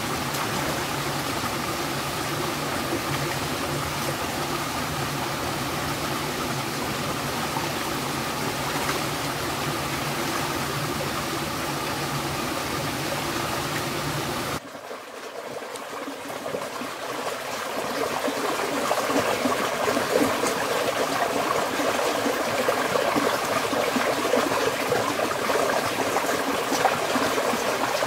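Shallow stream water flowing and trickling over rocks. About halfway through the sound cuts off abruptly, then comes back and builds into a louder rush of water.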